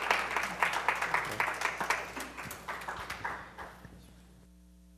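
Congregation applauding, the clapping thinning out and dying away about four seconds in.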